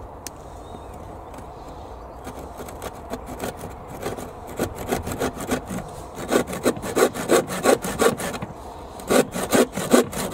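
Stanley handsaw cutting through a pallet-wood picket in quick, regular back-and-forth strokes, light at first and getting louder and stronger about halfway through, with a brief pause near the end before the sawing starts again.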